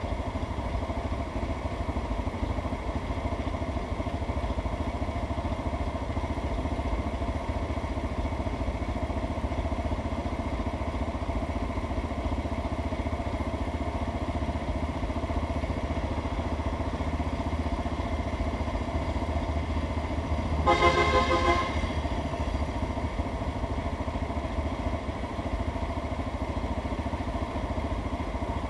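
A vehicle engine idling with a steady low rumble while traffic waits at a red light. About two-thirds of the way through, a horn sounds once for about a second.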